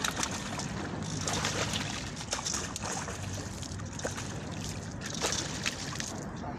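Water sloshing and lapping at the shoreline, with irregular sharp clicks and a faint low hum underneath.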